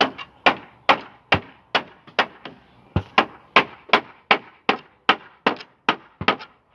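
Hammer striking wooden boards in a steady run of sharp blows, about two and a half a second.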